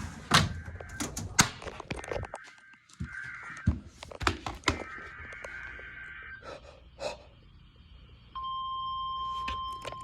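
NOAA Weather Radio sounding its weekly test signal: short buzzy digital header bursts, then about eight seconds in the steady 1050 Hz warning alarm tone starts and holds. Several sharp knocks sound in the first half.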